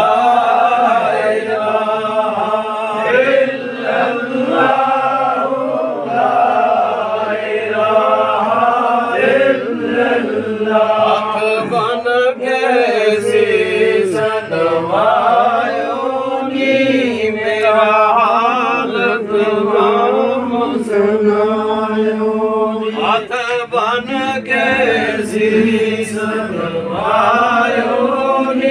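Men's voices chanting zikr, unaccompanied devotional recitation that rises and falls in pitch without pause.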